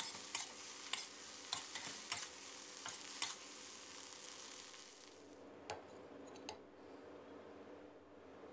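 Crab fried rice sizzling in a metal wok as a spatula tosses and scrapes it, with sharp clicks of the spatula against the pan about twice a second. The sizzle fades out about five seconds in, leaving only a couple of faint taps.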